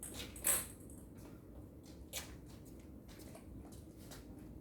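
A few sharp clicks of a table tennis ball striking bat or table, the loudest about half a second in and a weaker one a little after two seconds.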